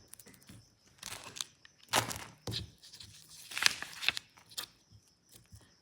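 Handling noises of squishy toys and fidgets being picked up and moved about: a series of short rustles and scrapes, the loudest about two seconds in and again near the middle.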